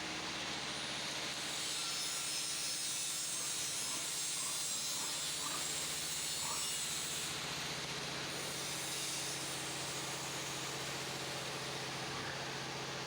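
Steady hiss with a low, even hum underneath; a few faint short chirps about four to seven seconds in.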